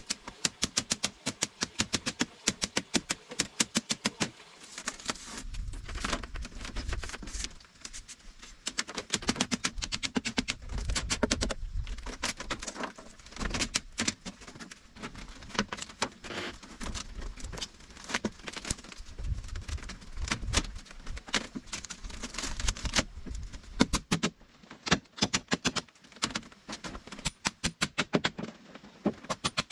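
A rapid run of sharp taps or clicks, several a second, with a low rumble underneath through most of the middle stretch.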